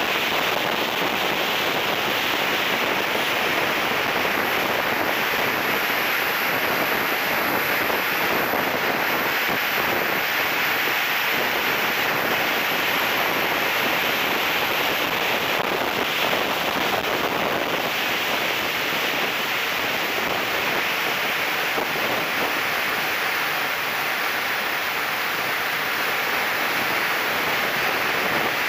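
Steady rush of airflow over an onboard camera on a turbine-powered RC model jet in flight. A thin, faint high whine from the turbine sits above it, stepping up in pitch a few times and then dropping back about halfway through.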